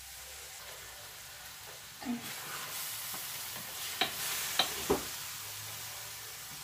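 Diced pork and onion sizzling in butter in a stainless steel Saladmaster electric skillet while being stirred with a wooden spoon. The sizzle swells about two seconds in, and the spoon knocks sharply against the pan several times.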